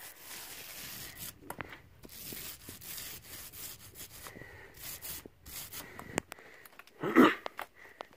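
Paint roller rolling wet paint onto a textured wall, a sticky rubbing noise that comes and goes with the strokes. A brief louder sound breaks in about seven seconds in.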